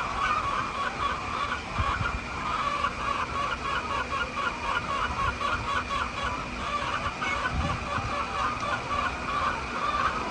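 A flock of chickens clucking continuously, many short calls overlapping, with a steady high tone behind them.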